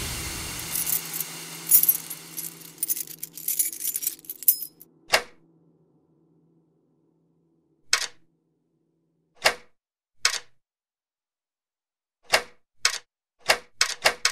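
Keys jangling and clicking at a front-door lock as a key is tried and will not go in. After a dense clatter that fades over the first few seconds and a quiet stretch, there are single sharp clicks, then a run of clicks that comes faster near the end. The key fails because the lock has been blocked from inside.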